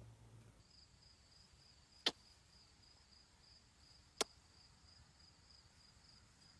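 Faint steady chirring of insects, pulsing about three times a second, with two sharp clicks about two seconds apart.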